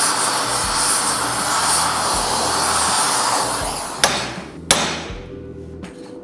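A loud, steady rushing noise that fades out about three and a half seconds in, then two sharp hammer strikes on metal about half a second apart, followed by lighter taps. Background music plays underneath.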